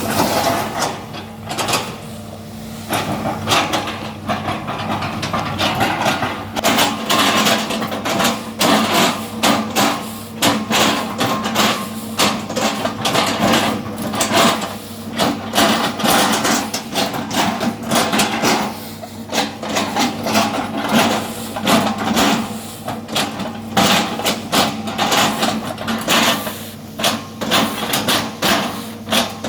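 Excavator engine running steadily under frequent, irregular knocks and cracks of wood as oil palm trunks are chopped up.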